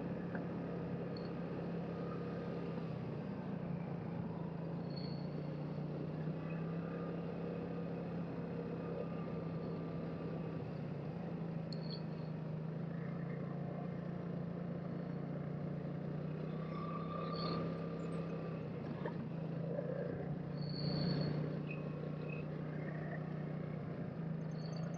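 2007 Vespa LXV 150 scooter's 150cc single-cylinder four-stroke engine running steadily at low road speed, heard from the rider's seat, with tyre and wind noise.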